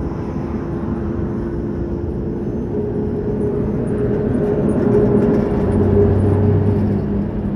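Inside a car's cabin at expressway speed: steady road and tyre noise with the engine's hum, swelling a little about five seconds in.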